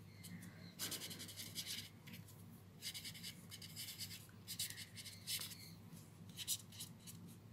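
Pen scratching faintly across lined paper as words are handwritten: short runs of scratchy strokes with brief pauses between words.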